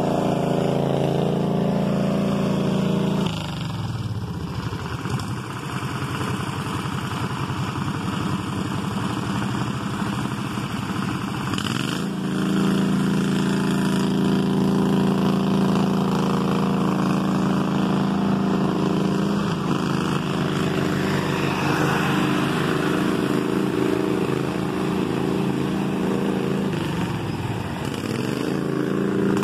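Garden tractor engines running hard while the tractors churn through deep mud. The engine note drops sharply about three seconds in and picks back up about twelve seconds in, with another dip near the end.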